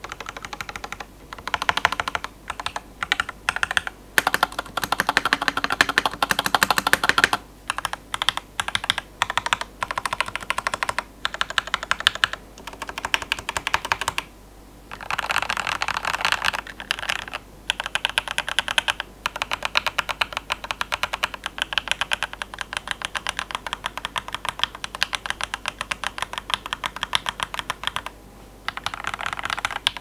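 Typing on a Monsgeek MG75 mechanical keyboard with SP-Star Luminous Cyber switches relubed with 205g0 grease, on its stock plate and stock stabilizers: keys clacking in fast runs, with short pauses about halfway through and near the end.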